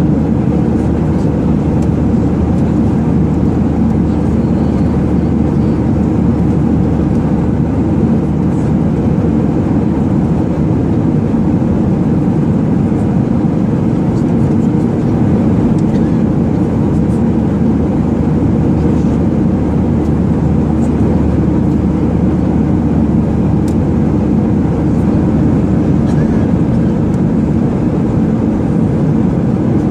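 Steady, loud engine and airflow drone heard inside an airliner's passenger cabin in flight, deep and even with no changes, plus a few faint clicks.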